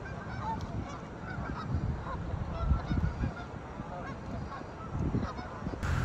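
A flock of Canada geese honking, with many short calls scattered and overlapping.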